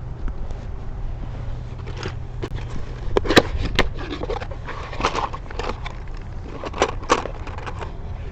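Small metal lock parts being handled: a run of sharp clicks and clinks with short scrapes, loudest a little past three seconds in and again around seven seconds, over a low steady hum.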